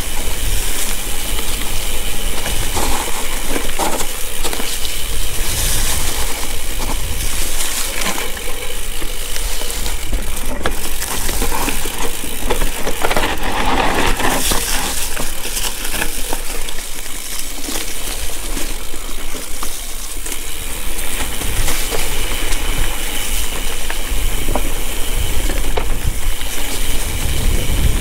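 Mountain bike riding down a dirt singletrack trail: tyre and bike noise over rough ground, under a steady low wind rumble on the microphone.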